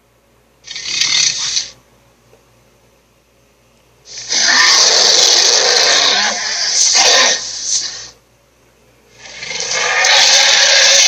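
Roaring sound effects: three rough, growling roars with no clear pitch. A short one comes about a second in, a long one of about four seconds in the middle, and another starts near the end.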